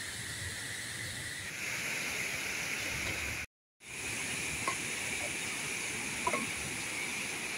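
Steady hiss of river water pouring over a low dam and foaming below it. The sound cuts out for a moment about halfway through, and a couple of faint short chirps come near the end.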